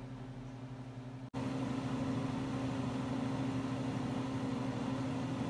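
Steady hum with a hiss at a gas stove where whole eggplants are being charred over the flame. It comes in suddenly about a second in, after a quieter room hum.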